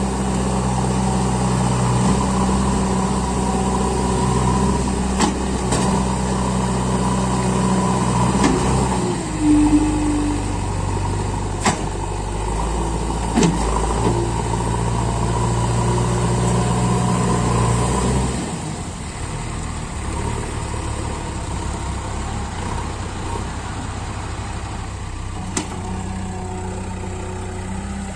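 Diesel engine of a JCB 3DX backhoe loader running steadily, then dropping to a lower, quieter note about two-thirds of the way through. A few sharp knocks are heard over the engine.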